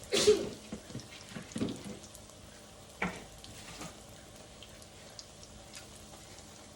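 Hot oil crackling in a skillet of frying cauliflower, with a few knocks and clatters of tongs and a plate, the loudest right at the start.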